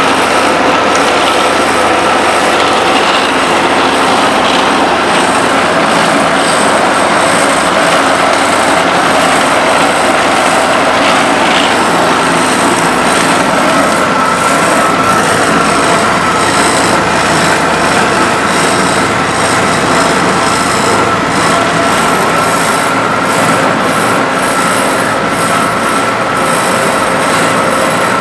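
Heavy road-paving machinery running steadily at a site where asphalt is dumped into a paver: continuous engine noise with a constant high whine on top.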